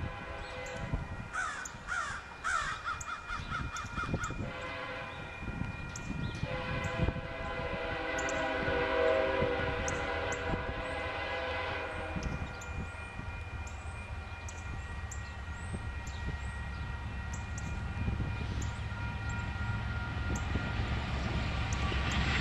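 Air horn of an approaching diesel freight locomotive sounding a long blast, strongest for several seconds in the middle and then fading. A bird chatters during the first few seconds, and the low rumble of the train builds near the end.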